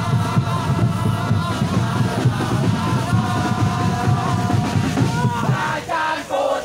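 A large crowd of football ultras singing a chant together, loud and continuous, with a brief drop near the end.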